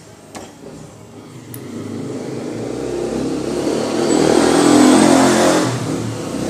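A small engine running steadily, then revving up over a few seconds and dropping back near the end.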